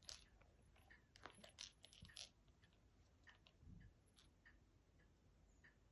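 Faint plastic clicks and rattles of a cat ball-track toy as a cat bats the ball around the ring, most of them in a quick cluster about one to two seconds in.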